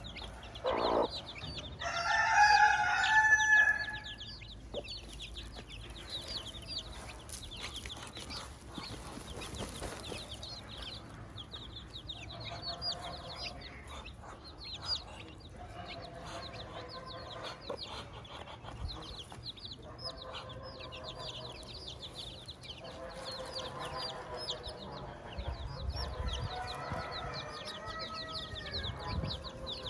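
A brood of chicks peeping without a break in rapid, high-pitched cheeps while their hen clucks. About two seconds in, a rooster crows once, loudly, for about two seconds.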